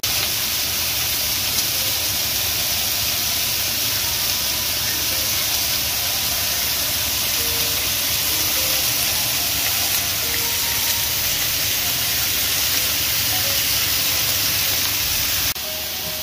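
Pork belly strips sizzling steadily in a hot frying pan. The sizzle drops to a quieter level near the end.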